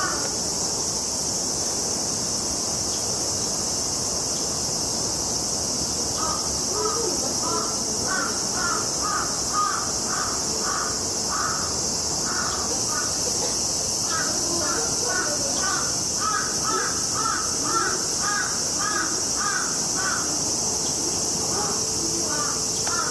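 Steady high-pitched drone of cicadas, with rapid runs of short repeated animal calls, two or three a second, starting about six seconds in, stopping near twenty seconds and starting again near the end.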